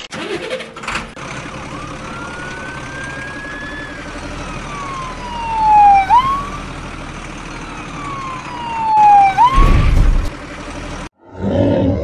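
A siren wailing in long, slow sweeps. The pitch falls twice, each time turning into a quick upward swoop, and it is loudest at the bottom of each sweep, about halfway through and again near the end. A steady hiss runs underneath, with a few clicks in the first second.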